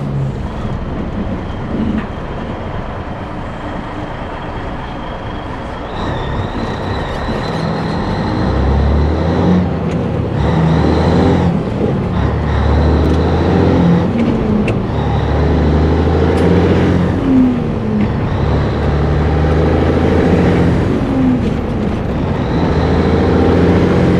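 Cabover Peterbilt semi truck's diesel engine pulling under load, growing louder about a third of the way in. Its pitch climbs and drops several times as it works up through the gears, with a thin high whine over it.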